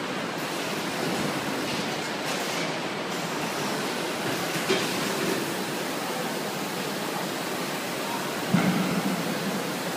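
Carton palletizer running: a steady mechanical noise, with a knock about halfway through and a louder knock near the end.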